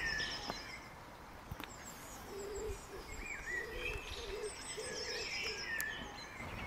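Songbirds singing and chirping, with a low cooing call repeated in short phrases from about two seconds in.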